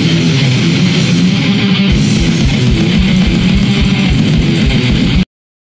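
Loud guitar music, with a steady low beat coming in about two seconds in; it cuts off abruptly near the end.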